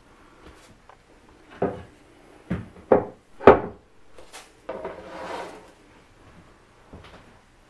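Thin spruce guitar soundboard being handled: four wooden knocks with a short ring, the last the loudest, then a brief scrape as the top is slid down flat onto the wooden workbench.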